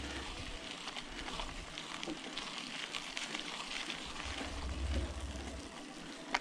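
Mountain bike tyres rolling over a wet dirt-and-gravel road: a steady crackling hiss, with low rumbles of wind on the microphone in the middle and a sharp click near the end.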